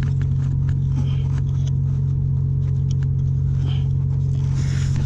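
Steady low drone of a ship's machinery, one even hum with several overtones that does not change. Light scrapes and taps of a hand working a metal antenna mounting bracket sound over it.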